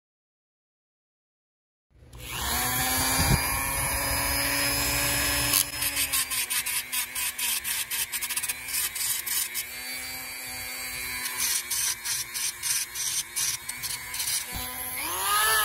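Handheld rotary tool with a grinding stone, silent at first, starts about two seconds in with a steady whine, then grinds in rapid stuttering passes against a throttle-blade screw head on the carburetor's throttle shaft. Its pitch swings up and down near the end.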